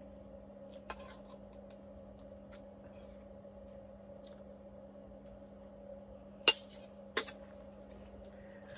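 Metal knife clinking against a glass jar of tartar sauce while sauce is spread onto tacos: a light click about a second in, then two sharp clinks about three-quarters of a second apart near the end, over a faint steady hum.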